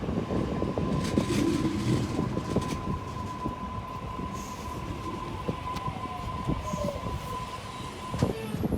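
Sydney Trains Waratah B-set electric train running through the station, its wheels clattering over the rails. A steady high whine runs under it and cuts off near the end, and a brief falling whine comes partway through.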